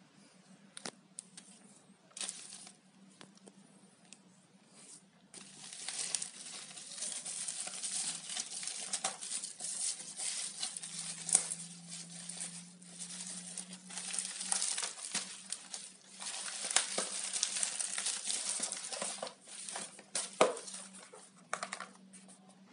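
Plastic packaging of a Xiaomi Mi Band 3 being handled and crinkled, with sharp crackles and clicks. A few scattered clicks at first, then continuous crinkling from about five seconds in until near the end.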